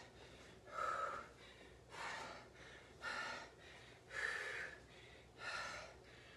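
A woman breathing hard in rhythm with dumbbell lunges: five forceful breaths about a second apart.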